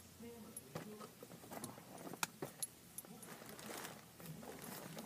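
A puppy moving about close by: light scattered clicks and jingling, like collar tags and claws on the floor, with a short faint whimper near the start.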